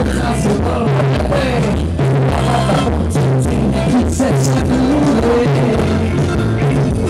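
Amplified live dance-band music from a verbena orchestra: a steady drum-kit beat and a repeating bass line under a melody.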